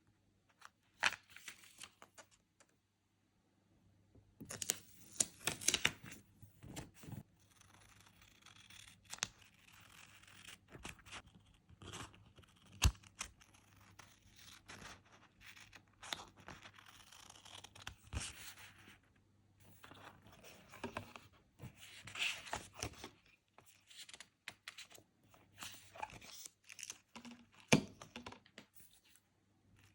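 Stickers being peeled off their backing sheets and handled, in intermittent bouts of tearing and rustling of paper and plastic with scattered sharp taps.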